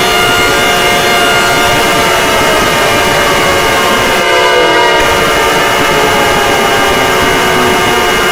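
Emergency alert (EAS) alarm: several steady alarm tones held together over harsh noise, very loud and distorted. About four seconds in the noise briefly thins and the tones shift slightly.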